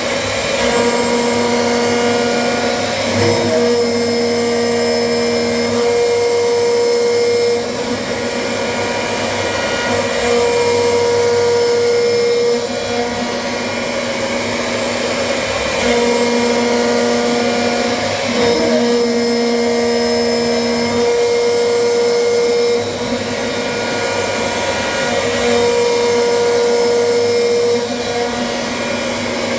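CNC machine running: a steady motor whir with a pitched whine that switches on and off every few seconds as it works.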